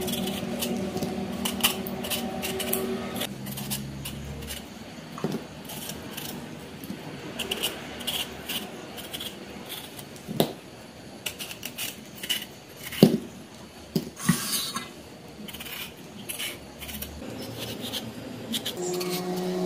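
A kitchen knife peeling a raw chayote by hand: irregular scraping and clicking as the blade strips the skin, with a few sharper strokes in the second half.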